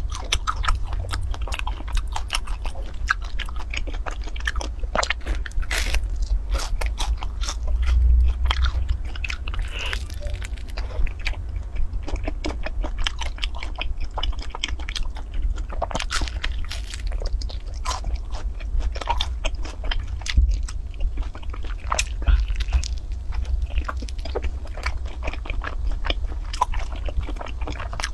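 Close-miked eating of flat fried rice cakes topped with powder and syrup: biting and chewing with many short mouth clicks and smacks, over a steady low hum.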